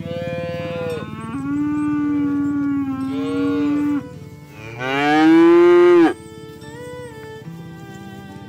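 Cattle mooing: several long, drawn-out moos, with the loudest one rising and then falling in pitch a little past halfway.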